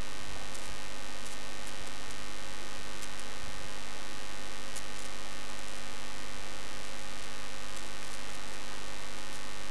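Steady electrical mains hum with hiss, an even buzz of many fixed tones, with a few faint ticks over it.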